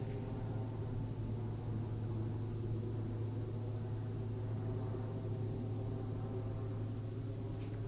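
A steady low machine hum with a stack of even overtones, holding unchanged throughout.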